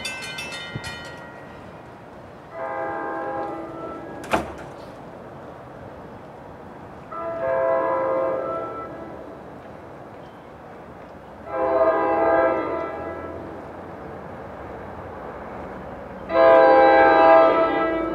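An approaching commuter train's multi-chime air horn sounding four blasts, each one to two seconds long, spaced a few seconds apart, growing louder as the train draws nearer, the last the loudest. The pattern is typical of a train whistling for a grade crossing. A single sharp click is heard about four seconds in.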